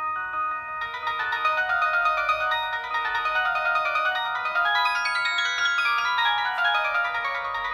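Preloaded polyphonic ringtone playing on a Samsung SGH-D600 mobile phone: a busy melody of short, bell-like notes that grows fuller about a second in.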